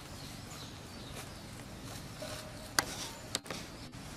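Outdoor background hiss with a few sharp clicks or snaps, the loudest two close together near three seconds in.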